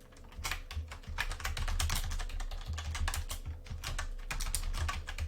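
Typing on a computer keyboard: a quick, irregular run of key clicks, with a faint steady hum underneath.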